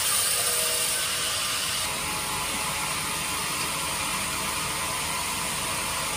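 Sawmill band saw running with a steady mechanical whir and hiss. The high hiss eases slightly about two seconds in.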